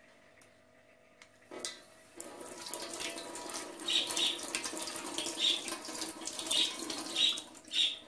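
Kitchen tap running over a tomato as it is rinsed and rubbed by hand under the stream, the water splashing into the sink. The water comes on about two seconds in and is shut off abruptly just before the end.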